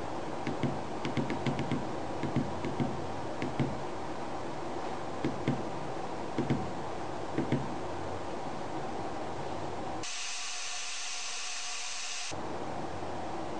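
Small tactile pushbuttons on a breadboard clicking under a finger, a dozen or so irregular presses over the first eight seconds, over a steady hiss. Near the end a brighter hiss, with no clicks, lasts about two seconds.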